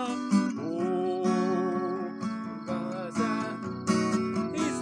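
A man singing a wordless, gibberish melody in held notes over a strummed Takamine acoustic guitar.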